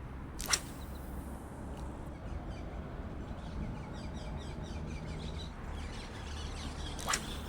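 Outdoor bank-side ambience: a bird chirping in short repeated notes over a low steady rumble, with a sharp click about half a second in and another near the end.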